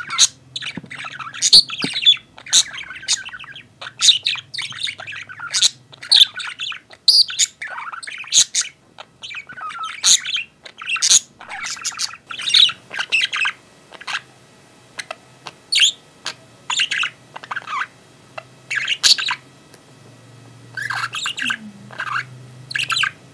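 Outdoor birds calling: a string of short, sharp chirps and squawks, dense at first and more spaced out in the second half.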